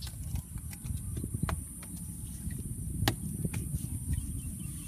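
Bare hands scooping and pressing wet mud and clay, giving scattered squelches and knocks, the loudest about three seconds in, over a low rumble and a steady high hiss.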